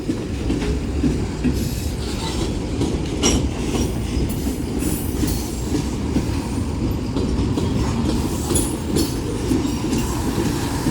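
Freight cars of a Union Pacific manifest train, low flatcars among them, rolling past. Steel wheels rumble steadily on the rail, with scattered sharp clicks.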